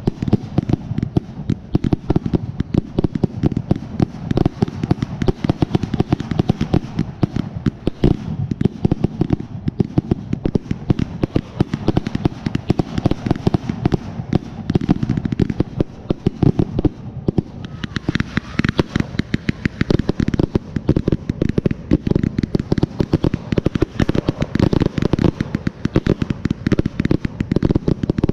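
Dense, non-stop barrage of 2.5-inch aerial firework shells launching and bursting, many sharp reports a second with no pause. The bangs turn sharper and brighter about two-thirds of the way through.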